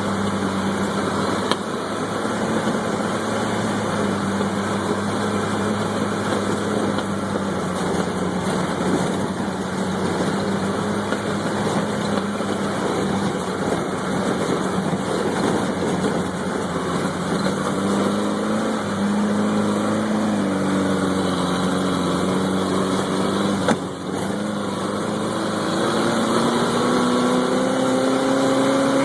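Off-road vehicle's engine running at a steady, moderate speed, its pitch wavering and shifting in the last third and rising near the end. Two short knocks, one about a second and a half in and one about three-quarters through.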